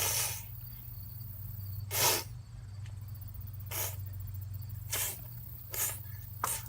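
Toddler making short, breathy, hissing noises, about six of them spaced irregularly, over a steady low hum.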